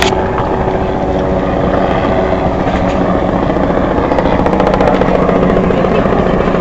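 An engine running steadily and close by, with an even hum over a haze of wind and water noise.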